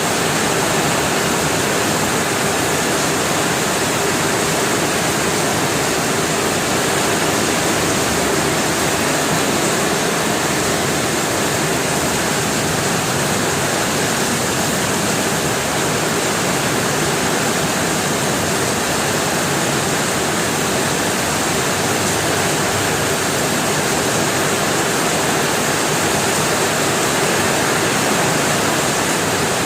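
Steady, unchanging rushing noise spread evenly from low to high pitch, with no rhythm, tones or individual events.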